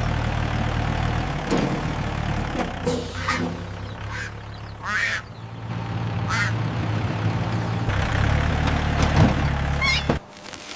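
Tractor engine running with a steady low drone that stops abruptly near the end, with short duck quacks over it now and then.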